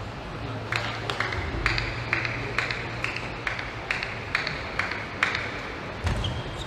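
A table tennis ball bounced over and over, about two bounces a second for roughly eleven bounces, each a sharp click with a short ping, as a player readies to serve.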